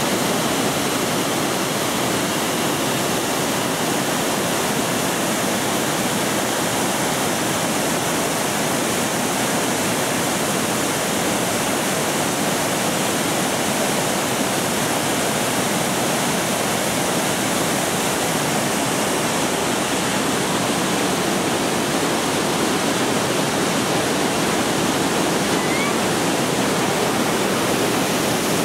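Mountain stream rushing in cascades and small waterfalls over boulders: a steady, unbroken rush of white water.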